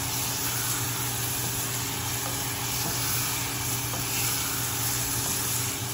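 Chicken pieces sizzling in hot oil and masala in a saucepan, stirred with a wooden spoon, over a steady low hum.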